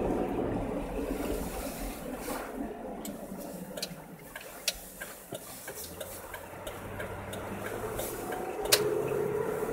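Car cabin while driving on a slushy, snow-covered road: low engine hum and tyre noise through slush, with scattered irregular clicks and knocks, the sharpest one near the end.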